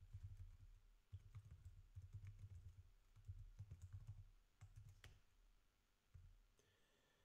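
Faint typing on a computer keyboard: quick bursts of dull key taps that die away after about five seconds.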